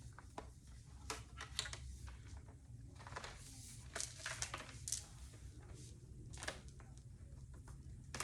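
Hard plastic snap-on case being pushed and fiddled onto a MacBook Air: scattered plastic clicks and scrapes. The case is too short at the top to snap into place and keeps popping off.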